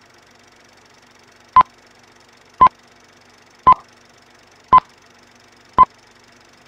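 Film-leader countdown sound effect: five short beeps on the same pitch, about a second apart, one for each number counted down, over a faint hiss.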